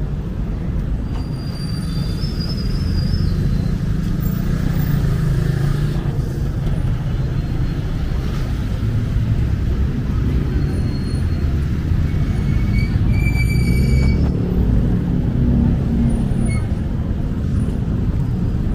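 Street traffic: a steady low rumble of passing vehicle engines, with a few brief high-pitched tones around two seconds in and again about thirteen seconds in.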